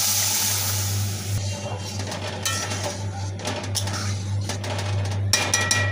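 A burst of sizzling as the boiled masoor dal with kalmi saag (water spinach) hits the hot oil with fried onion and garlic, dying away after about a second and a half. Then a metal spatula scraping and clinking against the pan as it is stirred, busiest near the end, over a steady low hum.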